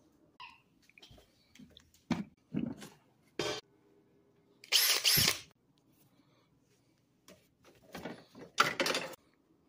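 Handling noise from a Makita cordless drill and its plastic tool case: a string of short clatters and rustles, with one louder noisy burst lasting nearly a second about five seconds in, and another cluster near the end.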